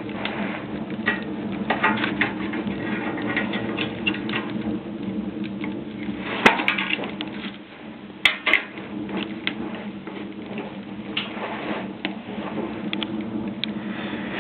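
Wood fire crackling and popping in a homemade sheet-metal potbelly stove, a freshly loaded large log catching. There are a few louder sharp cracks about six and eight seconds in.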